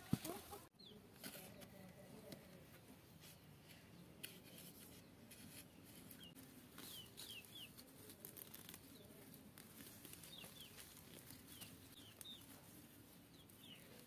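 Chicken chicks peeping faintly: scattered short high chirps that fall in pitch, some in quick runs of two or three. A single knock sounds right at the start.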